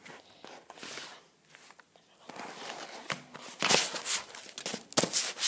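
Plastic school folders being handled and flipped over: rustling and scraping, with sharp slaps about three and a half and five seconds in.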